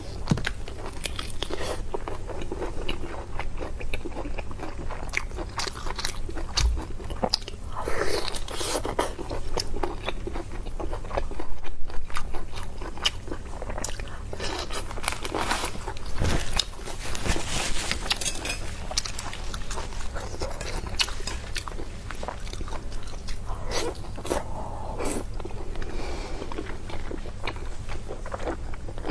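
A person biting into and chewing meat, with crunchy bites and many small clicks; a louder burst of crunching about twelve seconds in.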